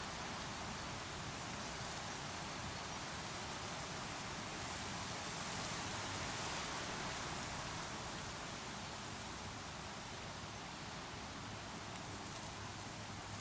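Creek water rushing in a steady, even wash.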